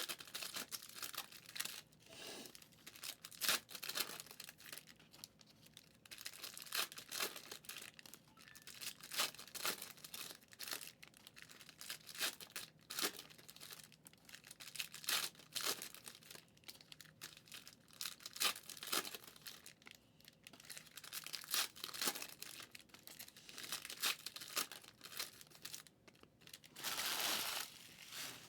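Trading-card pack wrappers crinkling and tearing as packs are opened and handled, in a run of short irregular crackles, with one longer continuous tear near the end.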